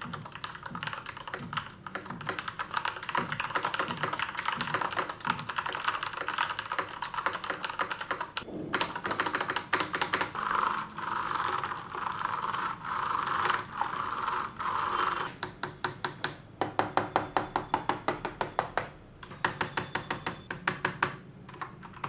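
Typing on an Asus ROG Strix Flare mechanical keyboard with linear Cherry MX Red switches and a plastic body with no metal plate: fast, continuous keystroke clatter, broken by two short pauses, then a string of separate, evenly spaced key presses in the last few seconds.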